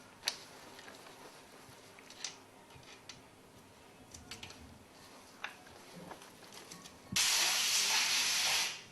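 A few light metallic clicks of tools on the engine, then about seven seconds in a loud, steady hiss of a pressurised jet lasting under two seconds and cutting off abruptly.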